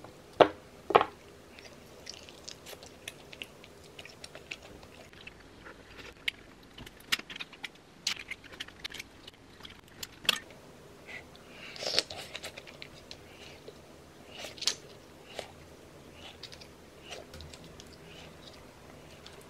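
Close-up eating sounds: surf clam shells, wooden chopsticks and a wooden spoon clicking against a ceramic bowl, with chewing in between. The clicks come irregularly, the two loudest about half a second and a second in.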